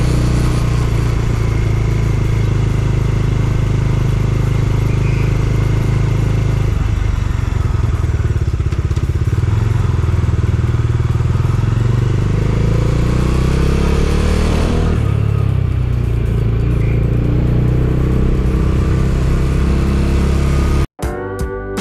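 Bajaj Dominar 250's single-cylinder engine running as the motorcycle rides slowly through town, heard from the rider's seat. The engine note rises and falls with throttle and gear changes. Near the end it cuts off suddenly into acoustic guitar music.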